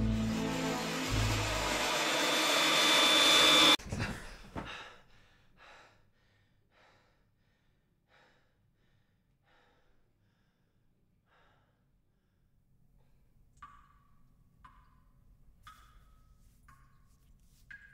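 Film soundtrack effects: a swelling rush of noise that cuts off abruptly, trailing away in a series of fading echoes. Then come sparse, short high plinks, about one a second, near the end.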